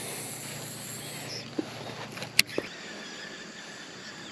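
Insects chirping steadily outdoors, with one sharp click a little past halfway and a couple of soft knocks around it.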